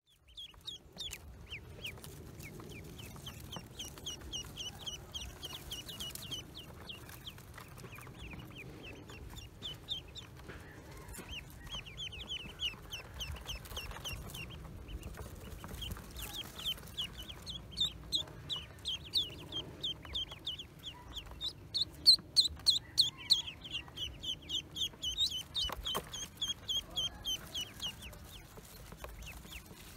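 Newly hatched ducklings peeping: a quick, unbroken stream of short, high cheeps from several chicks together, growing louder and busier past the middle. One sharp click sounds near the end.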